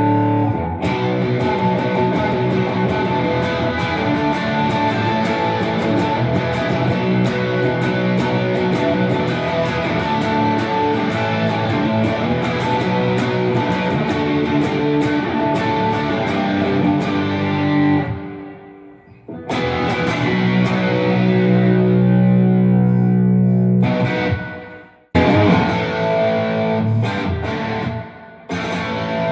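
Electric guitar with P90 pickups playing through a ToneKing Royalist preamp in its 1967 mode into powered PA speakers, with the gain on 7 and the guitar volume full up, giving an overdriven amp tone. The playing is continuous apart from two brief breaks where the chords stop, one about two-thirds of the way in and another shortly after.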